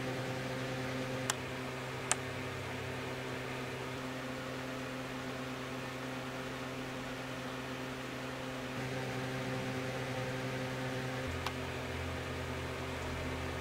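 Room tone: a steady electrical hum with hiss, broken by a few faint clicks, two of them near the start and one near the end.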